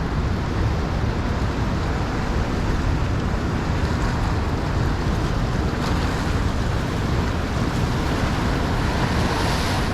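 Steady rushing noise of the fast river current, mixed with wind on the microphone.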